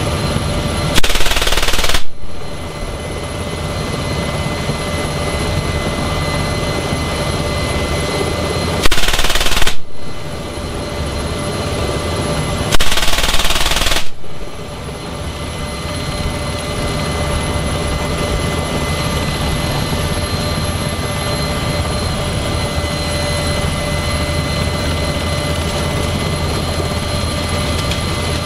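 FN M3M 12.7 mm (.50 calibre) heavy machine gun firing three short bursts of about a second each, the first about a second in, the others about nine and thirteen seconds in. Heard from inside an NH90 transport helicopter's cabin, over the helicopter's steady turbine and rotor noise.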